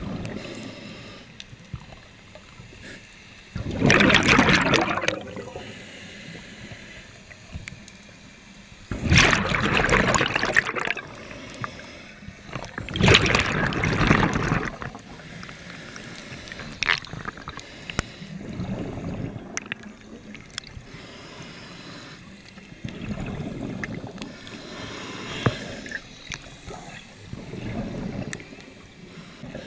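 Scuba diver's exhaled breath bubbling out of the regulator underwater, in bursts of about a second every four or five seconds. The three bursts in the first half are the loudest.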